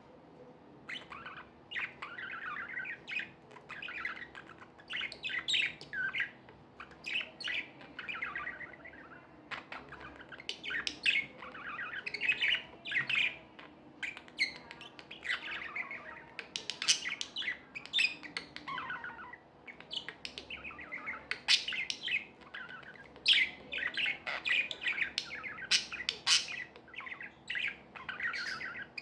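Budgerigars chirping and warbling in a busy, unbroken stream of quick calls, starting about a second in.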